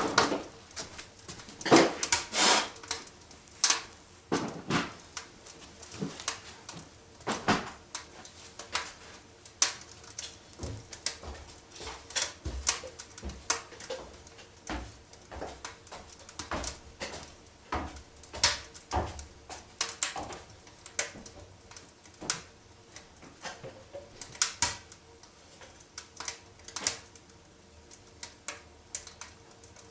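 Wood fire crackling in the firebox of a cast-iron stove: irregular sharp snaps, several a second, with the loudest cracks about two seconds in.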